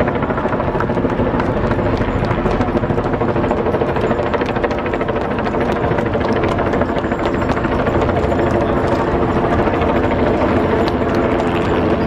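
A loud, steady mechanical drone with a fast, even pulsing beat that holds unchanged throughout.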